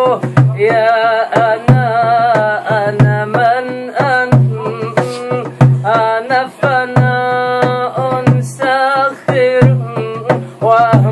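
A man singing an Arabic Sufi devotional song (inshad) unaccompanied by other instruments, in long, ornamented, wavering held notes. He keeps a beat with his hands drumming on a large plastic water-cooler jug, a sharp tap every fraction of a second.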